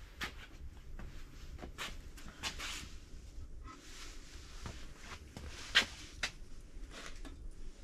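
Scattered light clicks and knocks of tool handling as a dial-indicator setup is brought to the crankshaft nose of an aluminium engine block to measure crankshaft end play, with the sharpest click a little before the end.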